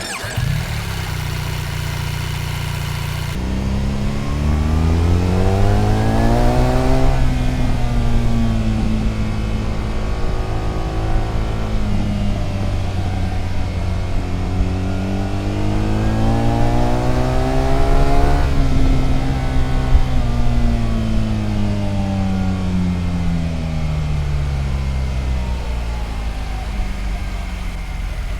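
BMW R1300 GS Adventure's boxer-twin engine idling for about three seconds, then pulling away with the revs climbing until about seven seconds in, where they drop sharply. After a steadier stretch the revs climb again in a long rise until about eighteen seconds in, then fall away slowly as the bike eases off.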